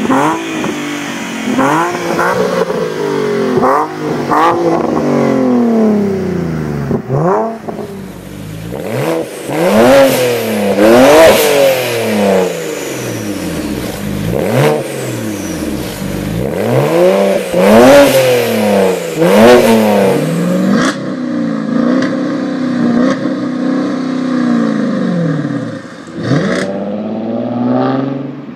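Car engines revved through their exhausts, one after another: a Nissan 350Z's V6 blipped in quick short revs, then a BMW 335i's twin-turbo N54 straight-six revved in long rises and falls. A lower, steadier exhaust rumble with small blips follows, and near the end a 2013 Ford Mustang V6 with a Roush exhaust accelerates away.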